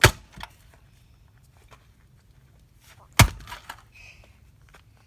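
Two sledgehammer blows on aluminium beer cans about three seconds apart, each a sharp impact followed by a brief clatter of smaller knocks.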